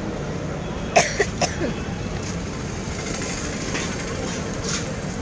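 Steady traffic noise of a busy street, with a couple of short clicks about a second in.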